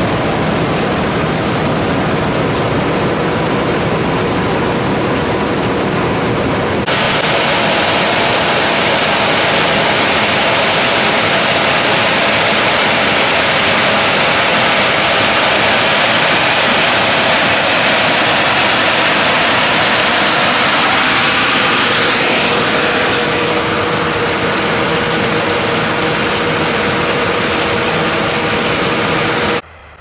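Potato harvester running close up: a loud, steady machine noise of its drive and the conveyors and elevator carrying potatoes. The sound turns abruptly brighter about seven seconds in, a rising whine comes in a little past two-thirds of the way, and near the end it drops sharply to a much quieter, distant running.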